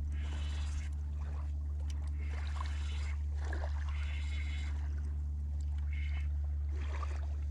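Steady low hum of a boat's motor running throughout, with short splashy hisses of water against the boat every second or two.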